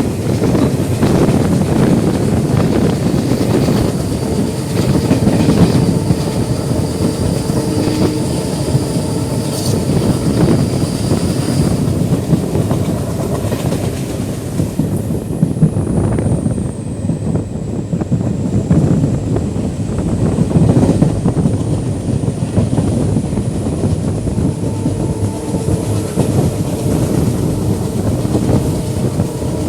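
Indian Railways passenger train running and gathering speed, its wheels clattering over the rail joints in a steady clickety-clack over a loud rumble.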